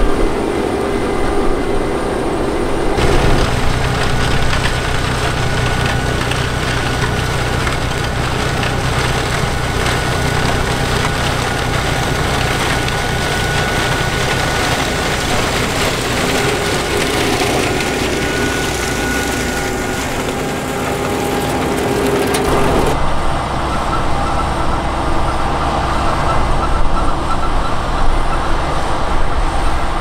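Heavy farm machinery running steadily: the engines of potato harvesters and tractors in the field. The sound changes abruptly about three seconds in and again a few seconds before the end, as the shot changes.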